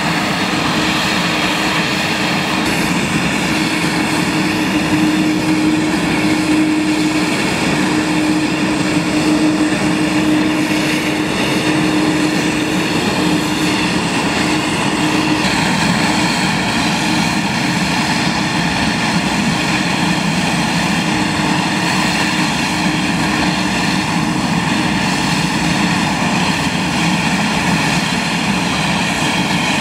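Airbus A330-200's GE CF6-80 turbofan engines running at taxi power: a steady jet drone with a low hum that is strongest in the first half.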